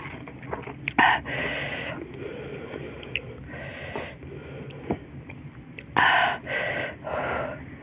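Close-miked eating: chewing with several loud breaths in and out through the mouth, the hissing breaths of eating chili-hot food, loudest about a second in and again around six seconds in. Small wet clicks of chewing and of fingers working rice come between them.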